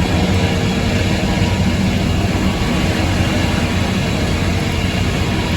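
Circle sawmill with upper and lower inserted-tooth saws running: a loud, steady machine drone with a strong low hum and an even hiss above it.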